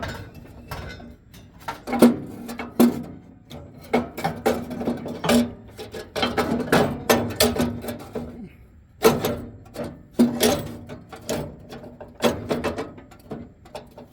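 Cast iron burner clanking and scraping against the metal of a commercial fryer as it is lowered and worked into place, a series of irregular knocks, some ringing briefly.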